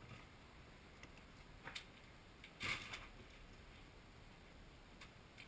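Near silence with a few faint ticks, and one short scuffling rustle about two and a half seconds in as a black squirrel scurries off.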